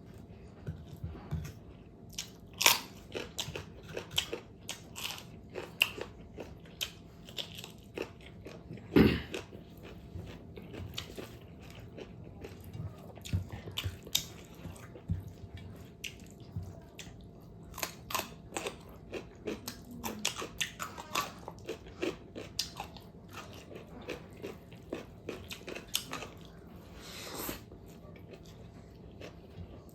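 Close-up mouth sounds of someone biting and chewing fatty pork: irregular crunches and wet chewing clicks, with a couple of sharper bites about three and nine seconds in.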